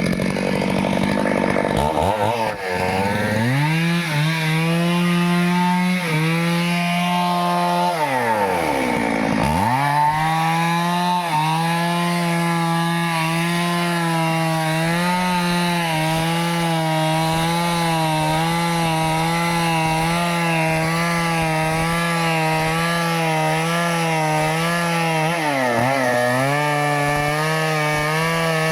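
Stihl chainsaw cutting through a tree, held at high revs under load. It revs up about two seconds in, then its engine speed drops away and picks back up twice: about a third of the way in and again near the end.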